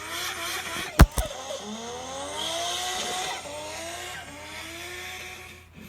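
A car engine revving hard during a burnout, its pitch climbing several times, with tyres squealing and a single sharp bang about a second in.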